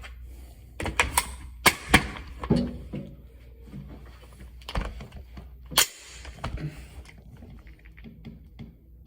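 Shots from an AR-15 pistol fired with a Fostech Echo binary trigger, which fires once on the pull and once on the release. About seven loud, sharp reports: several come in quick pairs a fraction of a second apart, and the last two are spaced about a second apart.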